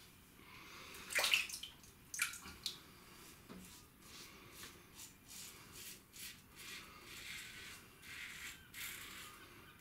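A Gillette Adjustable safety razor with a Gillette Nacet blade, set to 7, rasping through lathered stubble in short repeated strokes, about three a second. A few louder sharp sounds come in the first three seconds.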